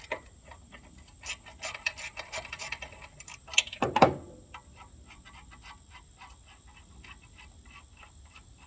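Socket ratchet clicking in quick, even ticks, about four a second, as mini bike motor mount bolts are backed out. Metal clanks of tools and parts come in the first half, loudest around four seconds in.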